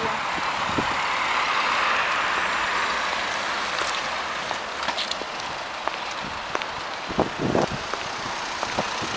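A motor vehicle passing along the street, its noise swelling over the first few seconds and then fading. A few light taps, and a couple of low thumps about seven seconds in.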